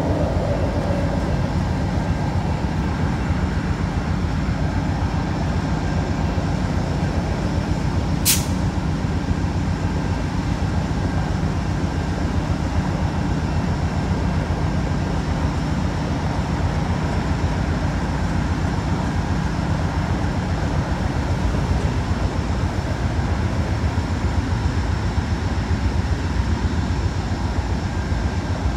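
Amtrak GE P42DC Genesis diesel locomotive idling, a steady low engine hum. One brief, sharp, high-pitched snap comes about eight seconds in.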